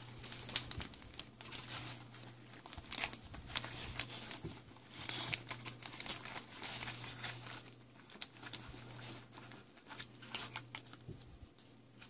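An antibacterial hand-wipe sachet crinkling and rustling as it is worked into a tight elastic slot of a nylon pouch, in irregular crackles. A steady low hum lies underneath.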